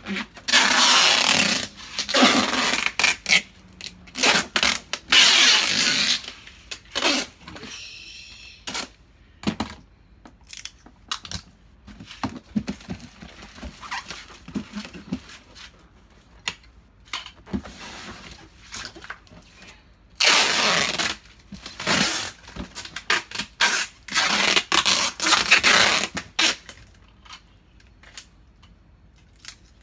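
Packing tape pulled off the roll in four long, loud rips and pressed down onto a cardboard box, with rustling and knocks of the box being handled between them.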